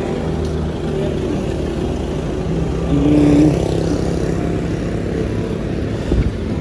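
Street traffic: a motor vehicle's engine running past, swelling a little about three seconds in.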